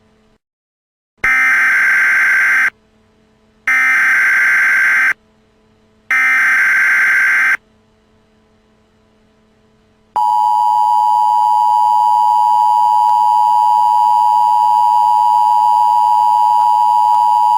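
Emergency Alert System tones: three buzzy bursts of SAME header data, each about a second and a half long, then after a pause of about two and a half seconds the steady two-tone EAS attention signal, which starts about ten seconds in and holds to the end.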